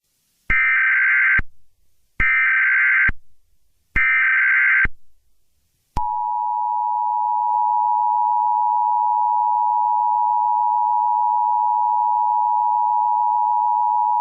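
Emergency Alert System tones: three short bursts of buzzing SAME header data, each about a second long, then, about six seconds in, the steady two-tone attention signal held for about eight seconds. Together they signal that an emergency message is about to follow.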